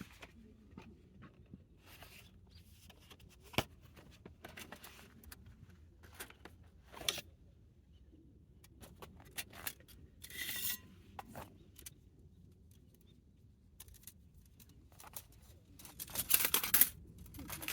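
Camp gear being handled: scattered clicks, knocks and scrapes, with a short rustling burst about ten seconds in and a busier run of scraping and rustling near the end.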